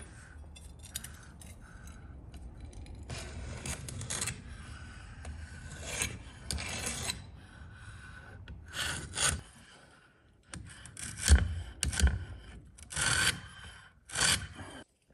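Steel height gauge sliding on a granite surface plate while its scriber scrapes a centre line along the edge of a forged knife blade, in a series of short scrapes. Two sharp knocks a little past the middle are the loudest sounds.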